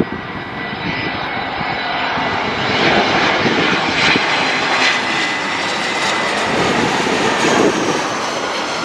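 Citilink Airbus A320 jet airliner passing low overhead on landing approach, its twin turbofan engines a loud rushing roar with a high whine on top. The sound builds over the first couple of seconds, is loudest in the middle, and the whine drops slightly in pitch as the jet goes past.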